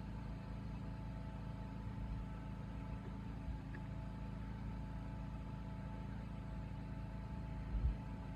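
Steady low hum with even, level tones, and a soft bump near the end.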